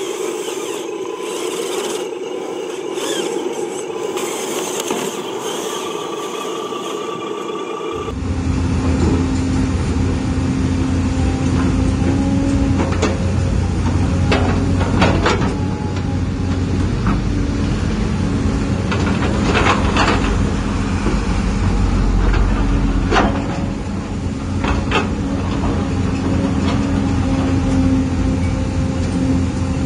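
RC dump truck's electric drive motor and gears running for the first several seconds, then an abrupt change to the deeper, louder steady hum of an RC hydraulic excavator's pump running. Sharp knocks come now and then as the bucket digs and soil drops into the truck bed.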